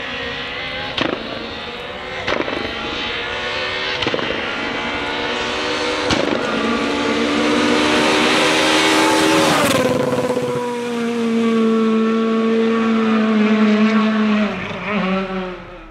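Renault Clio rally car engine at full throttle, climbing up through the gears with a sharp crack at each shift. About ten seconds in the pitch drops as it passes, and the note holds steady before fading out near the end.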